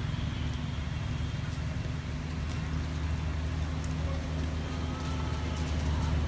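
A steady low mechanical hum with a faint thin high call about five seconds in.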